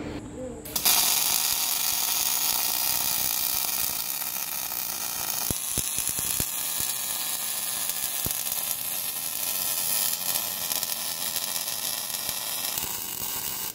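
MIG arc of a bore welding machine's rotating torch welding inside a steel bore: a steady sizzling crackle that starts about a second in, with a few sharp clicks around the middle.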